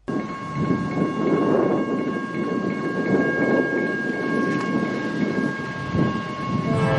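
Eurostar high-speed train running past with a loud rumble, while a steady high horn chord sounds over it, starting suddenly and held for about six seconds.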